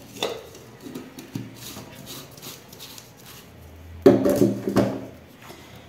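Ceramic dishes being handled on a wooden table: scattered knocks and scrapes, the loudest a clatter about four seconds in.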